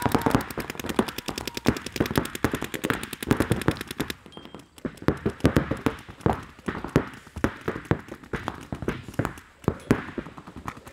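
Several paintball markers firing rapid strings of shots, dense for about the first four seconds, then thinning to scattered shots and short bursts.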